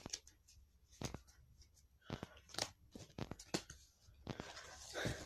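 Pokemon trading cards being handled and tapped into neat stacks: scattered light taps and clicks, with a longer rustling slide of cards about four seconds in.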